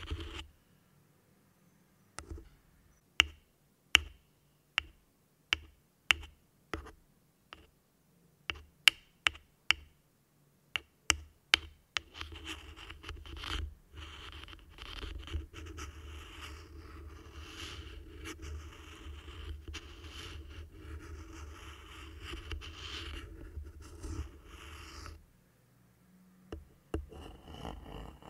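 A thin black stick tapping on the top of a Rode NT-USB Mini microphone's mesh grille, about fifteen separate taps at an uneven pace. A little under halfway through it switches to a long, steady scratching across the grille, which stops near the end.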